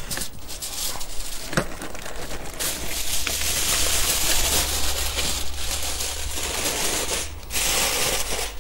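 Tin foil crinkling and rustling as chopped meat and vegetables are piled onto it and handled, louder through the middle stretch, with a few light knocks.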